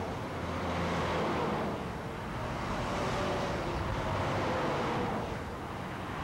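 Busy multi-lane freeway traffic: a steady rush of tyre and engine noise from many cars, swelling and easing a little as vehicles pass.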